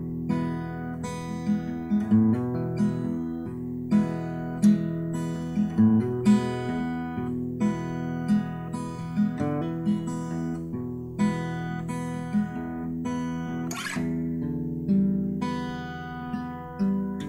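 Background music on acoustic guitar: plucked and strummed chords, with notes struck a few times a second and a sharp attack about fourteen seconds in.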